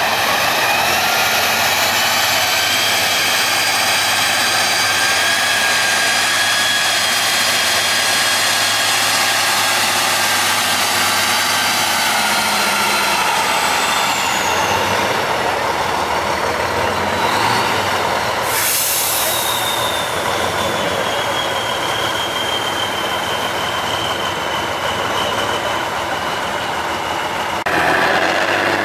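Tatra 813 8x8 truck working hard up a steep slope: a loud, steady engine and drivetrain with high whines that rise and fall with the revs. A short loud hiss comes about two-thirds of the way in. Near the end the sound cuts to another heavy truck's engine.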